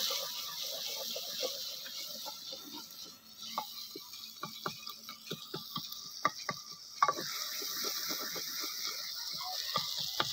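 Masala of onion, tomato and spices frying in ghee in a clay pot, with a steady sizzle, stirred with a wooden spoon that scrapes and knocks against the pot in many short clicks. The sizzle dips briefly about three seconds in.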